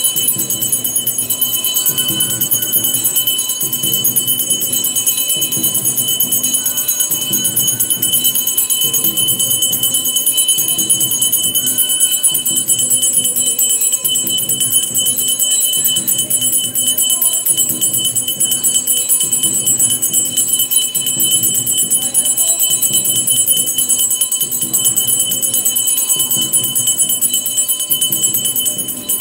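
Temple arati bells ringing continuously and rapidly, with a steady low beat repeating underneath, as during the lamp-waving worship.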